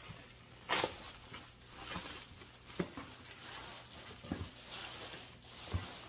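Clear plastic packaging bag crinkling and rustling as it is torn open by hand, with a loud crackle just under a second in and scattered clicks of the plastic after it.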